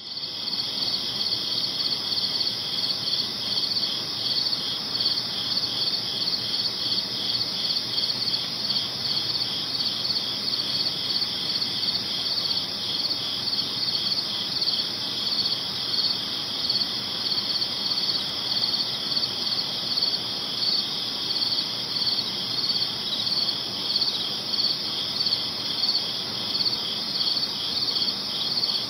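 Crickets chirping steadily in a dense, continuous chorus of rapid pulsing high trills, over a faint hiss of night ambience.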